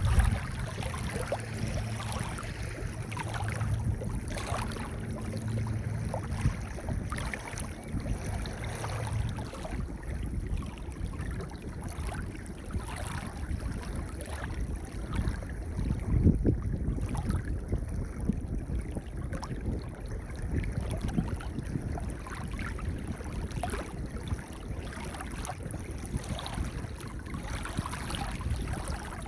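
Sea waves washing onto a pebble beach, a steady wash of water with many small clicks and a louder surge about halfway through. A low steady hum sounds under it for the first third, then stops.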